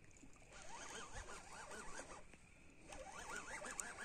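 Round baitcasting reel being cranked to bring in a hooked fish, its gears and level-wind giving a fast, zipper-like chatter. The chatter stops for under a second a little after two seconds in, then starts again.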